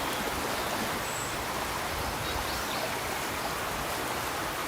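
Mountain stream rushing steadily over rocks, a constant hiss of flowing water.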